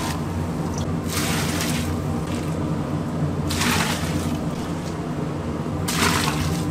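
Three ladlefuls of cloudy liquid poured into a large steaming pot of beef and greens, each pour a short splashing hiss about two and a half seconds apart, over a steady low hum.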